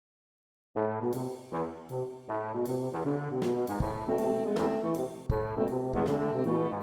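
Instrumental intro music with brass-like melody notes and occasional drum hits, starting abruptly just under a second in.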